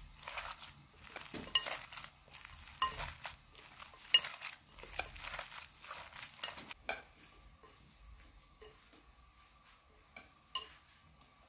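Minced lamb and grated onion being kneaded by hand in a glass bowl: wet squishing with several sharp clinks against the glass. After about seven seconds it goes quieter, with a faint steady tone and a light click.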